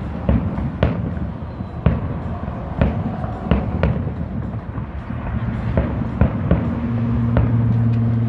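Fireworks display: aerial shells bursting with sharp bangs roughly once a second, among crackling. A low steady hum comes in about halfway through and grows louder toward the end.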